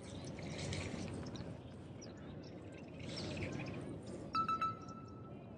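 Outdoor ambience with faint bird chirps and two swells of rushing noise, then, about four seconds in, an electronic jingle of short repeating beeps starts.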